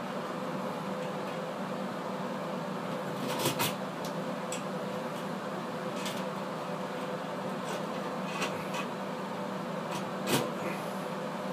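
A steady mechanical hum with a faint steady tone, broken by a few short sharp clicks and knocks; the loudest come about three and a half and ten seconds in.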